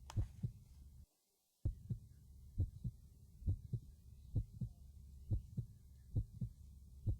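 Human heart sounds heard through a stethoscope: a regular lub-dub, pairs of low thumps about once a second over a low hum. The first sound of each pair is the mitral and tricuspid valves closing, the second the aortic and pulmonary valves closing. The sound cuts out briefly about a second in.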